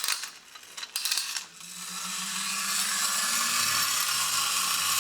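Vintage tin wind-up robot's clockwork mechanism: a few clicks, then about a second and a half in the spring motor starts a steady whir. A steady hiss of the flint wheel grinding against the flint runs with it as the robot walks and sparks.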